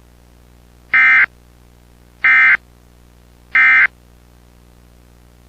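Emergency Alert System end-of-message (EOM) data bursts: three identical short electronic screeches of SAME digital data, about a second apart, marking the end of the alert.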